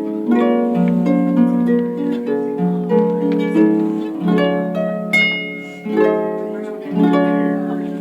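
Holiday music played on a plucked string instrument: a melody of plucked notes and chords, each note starting sharply and ringing as it fades.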